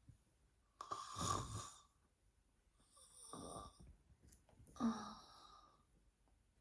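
A woman snoring softly in her sleep: three snoring breaths about two seconds apart, each lasting about a second.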